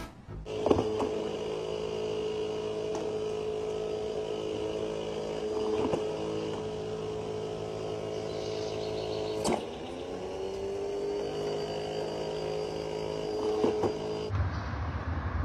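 Automatic dog ball launcher's electric motor whirring steadily, with a few sharp knocks. After the loudest knock, about two-thirds of the way through, the whine drops in pitch and climbs back up as the motor regains speed.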